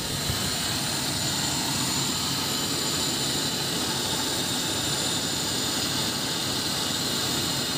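Toyota 7K four-cylinder petrol engine of a Tamaraw FX idling steadily after a tune-up with a new contact point.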